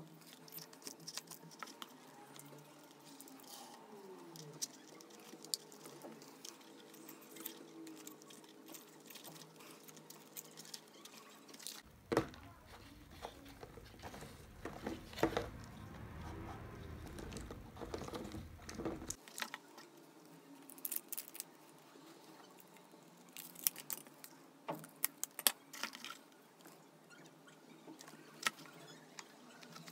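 Light clicks and taps of wooden popsicle-stick parts being handled and fitted together on a table, with a stretch of dull low handling noise for several seconds midway.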